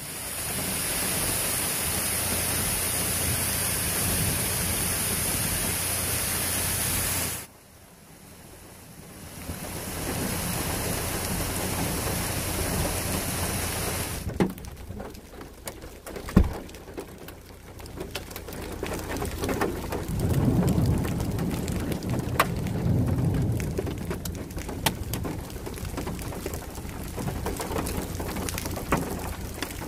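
Muddy rainwater runoff rushing down a steep rocky gully with a steady loud rush, cutting off suddenly about seven seconds in. Then comes more running water and rain, with many sharp raindrop hits and a low rumble of thunder a little past the middle.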